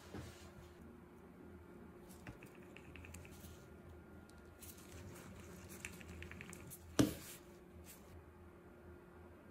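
Quiet handling sounds of resin crafting: gloved hands working with a plastic mixing cup, wooden stir stick and silicone mold, with small scattered clicks and one sharp knock about seven seconds in. A faint steady hum runs underneath.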